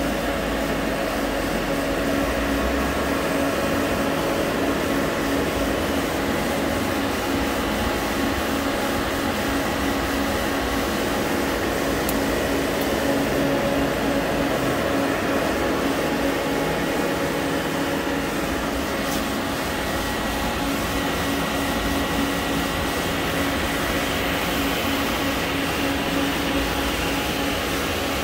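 Hardinge GT27SP CNC gang tool lathe running a program loop: a steady machine hum with one constant tone, with no breaks or impacts.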